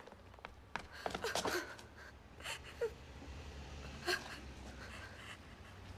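A woman crying softly with short gasping sobs and breaths, over a low steady rumble.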